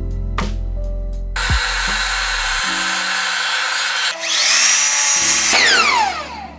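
A power tool starts a little over a second in and runs loudly, then whines down in falling pitch as it stops near the end, over background music.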